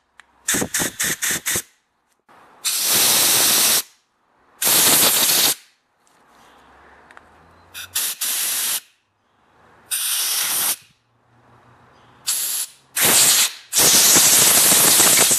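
Compressed-air blow gun blowing out the passages of a freshly cleaned Briggs & Stratton Quantum lawnmower carburetor, in bursts of hiss. It starts with a quick run of short puffs, then several blasts of about a second each, and a longer one begins near the end.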